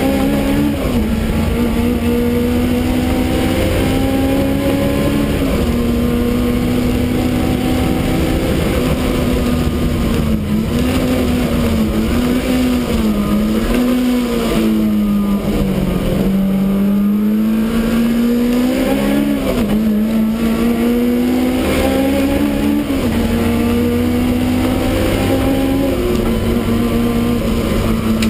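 Supercharged BMW E30 race car's engine heard from inside the stripped cabin, running hard with its pitch rising and falling through throttle, braking and gear changes, dropping low about halfway through before climbing again.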